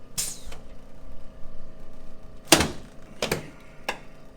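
Knocks and thumps on a chiropractic adjusting table, with a brief rustle of sliding on its padding, as the patient turns over onto her back. The loudest thump comes about two and a half seconds in, followed by two lighter knocks.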